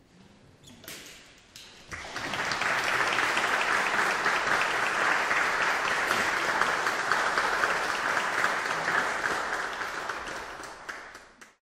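Audience applauding in a concert hall. A few scattered claps swell about two seconds in into full, steady applause, which thins near the end and cuts off suddenly.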